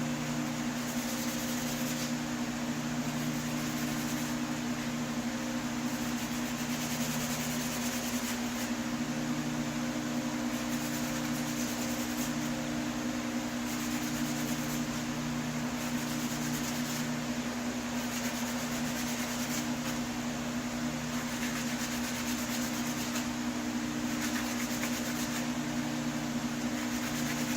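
A small electric motor running steadily: a constant hum over an even hiss, the lower part of the hum swelling and fading every few seconds.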